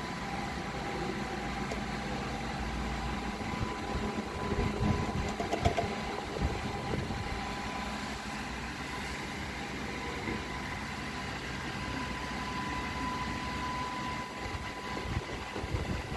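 A steady mechanical hum with a faint high tone, with a few soft knocks and rustles of handling about four to seven seconds in.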